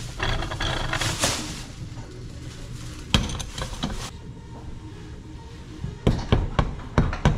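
Hand tools working on a BMX bike's fork and headset while the old forks are being removed: a scraping rattle at the start, a short clatter about three seconds in, then a quick run of sharp knocks and clinks in the last second and a half.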